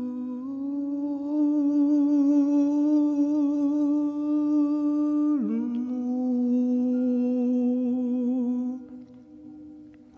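Layered hummed vocal tones, two close pitches held together, with a brief downward slide about five seconds in before settling again; the sound fades near the end.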